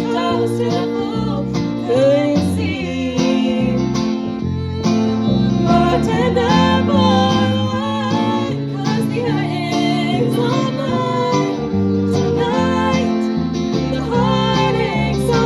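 Country band playing, with guitar prominent and no clear sung words.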